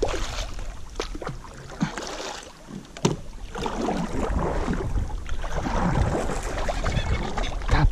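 Kayak paddle strokes, the blade splashing and swishing through the river water. There are a few sharp knocks in the first three seconds, then steadier water noise.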